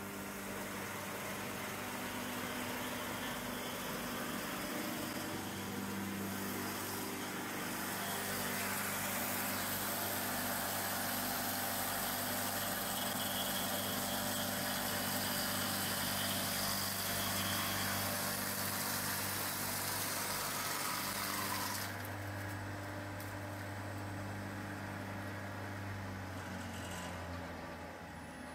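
Log lathe milling a round notch into a log: its electric cutter motor hums steadily under the dense hiss of the cutter chipping wood. About three-quarters of the way through the hiss drops away sharply while the motor hum continues.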